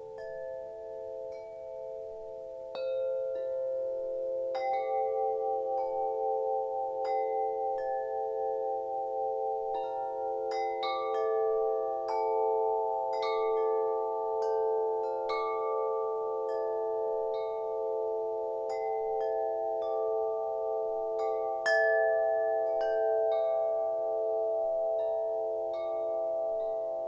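Wind chimes ringing, struck at irregular moments, their long overlapping tones sustaining into a steady wash with a slow pulsing. It grows busier a few seconds in, with one louder strike near the end.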